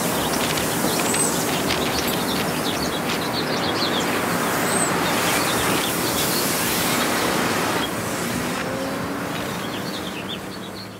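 Outdoor street ambience: a steady hum of road traffic with many small birds chirping over it, fading out near the end.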